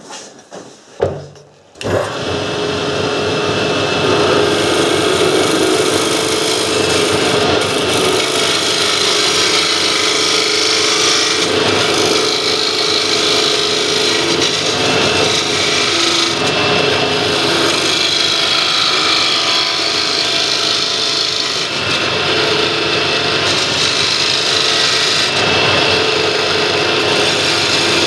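A few knocks, then about two seconds in a wood lathe's parting tool starts cutting the spinning wood blank, a steady scraping hiss of shavings over the lathe's hum, to bring the blank's end down to size.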